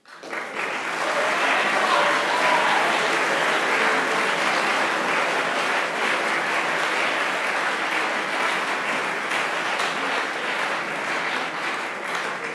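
Audience applauding steadily, the clapping starting at once and easing slightly near the end.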